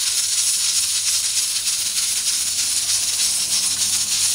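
Stovetop pressure cooker's weighted regulator rocking on the vent, giving a steady rattling hiss of escaping steam: the cooker has come up to full pressure.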